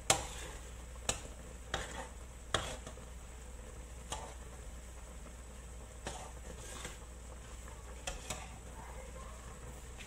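Metal spatula stirring tofu cubes in simmering coconut milk in a wok, tapping and scraping the pan in about ten sharp, irregular clicks, the loudest just at the start, over a faint steady sizzle.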